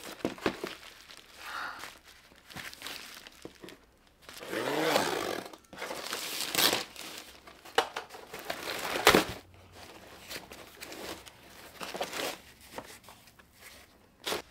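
Plastic courier mailer and inner plastic wrapping crinkling and rustling in irregular bursts as a parcel is unpacked by hand, with some tearing and a few sharper crackles.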